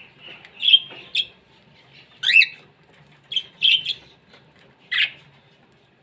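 Small caged parrots, budgerigars among them, giving a string of short, sharp squawks and chirps. There are about six calls; the loudest, just after two seconds in, rises and falls in pitch.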